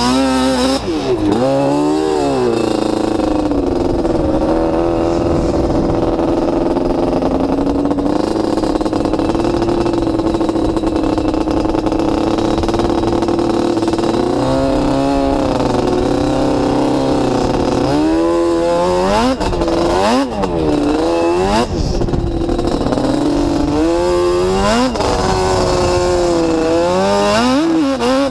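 Sport quad ATV engine under load in sand, revving up and down with the throttle, holding a steady high pitch for about ten seconds in the first half, then rising and falling repeatedly in the second half, with wind noise on the mounted camera.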